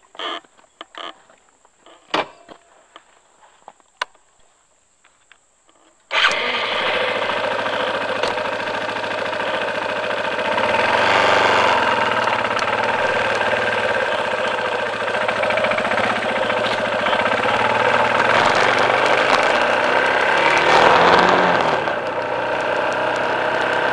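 A few light clicks and knocks, then about six seconds in a vehicle engine starts abruptly and runs steadily, growing louder twice, around the middle and near the end.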